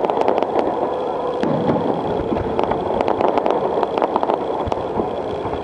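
Fireworks going off: many sharp pops and crackles, irregularly spaced, over a steady dense rumble.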